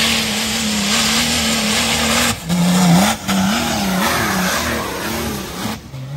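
Nissan Patrol with a swapped-in BMW M57 straight-six turbodiesel, running at high revs up a steep dirt climb, with its wheels spinning and spraying dirt. The revs hold high, then rise and fall again and again as the throttle is worked. The sound breaks off briefly twice, around two and a half and three seconds in.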